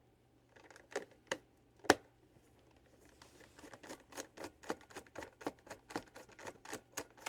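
Hand tools working a screw and the plastic housing of an induction cooktop being taken apart: a few separate clicks with a sharp knock about two seconds in, then a quicker run of small clicks, about three a second.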